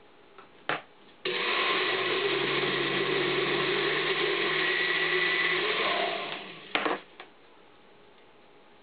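Countertop blender running for about five seconds, churning thick squash pancake batter, then winding down. A sharp click comes just before it starts and two more clicks as it stops.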